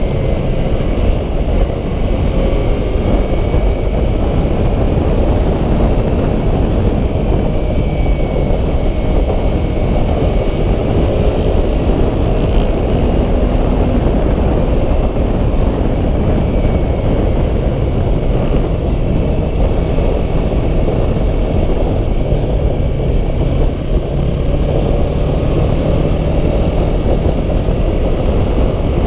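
Steady rush of wind over the camera microphone on a moving Yamaha R3 sport bike at road speed, with the bike's 321 cc parallel-twin engine running underneath as a low drone.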